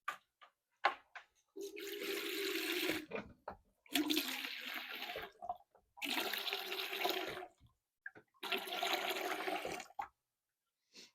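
Hand-pulled beer engine being pumped four times, each pull sending a gushing, sputtering spurt of PBW cleaning solution through the freshly brushed line and out the spout, with clicks and knocks of the pump between pulls.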